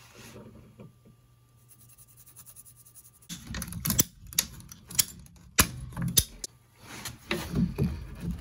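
Faint pencil scratching on PVC pipe at first. About three seconds in, a hand-held PVC pipe cutter starts clicking sharply as it is squeezed through the plastic pipe, four loud snaps about half a second to a second apart. The handled PVC fittings then knock softly.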